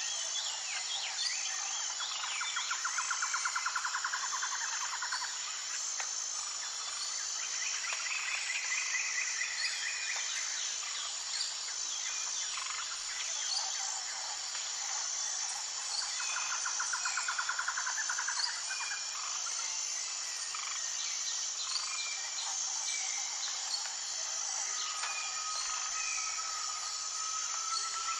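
Outdoor chorus of many birds chirping and calling over a steady, pulsing high insect drone, with rapid rattling trills a few times.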